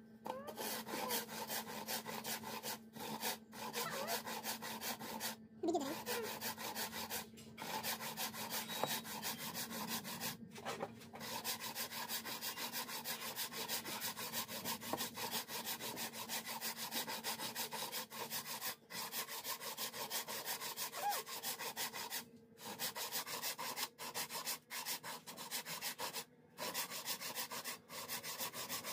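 Wooden frame saw rasping back and forth through wood in quick, steady strokes, with several brief pauses.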